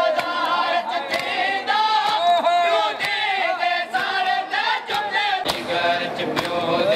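Men chanting a Muharram mourning lament together in chorus, with sharp chest-beating strikes of matam about once or twice a second.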